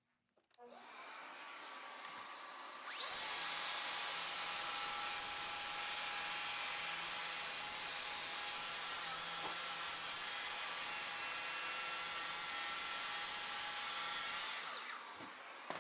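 A dust extractor starts up with a steady hiss. About three seconds in, a track saw starts with a steady whine and rips a narrow quarter-inch strip of poplar along its guide rail. Near the end the saw is switched off and begins to wind down while the extractor keeps running.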